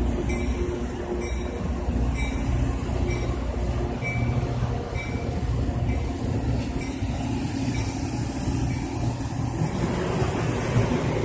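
Metra bilevel gallery passenger cars rolling past at speed, their wheels giving a steady heavy rumble on the rails with faint regular clicks.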